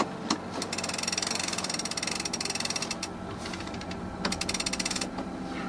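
Sailboat winch being cranked, its pawls clicking rapidly in two spells as a line is hauled in while the third reef is set in the mainsail. A single knock comes just before the first spell.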